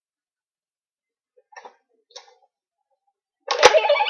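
Two faint plastic clicks from handling a Goseiger Tensouder toy morpher. About three and a half seconds in comes a sharp click, and the toy's small speaker starts playing a loud electronic sound effect.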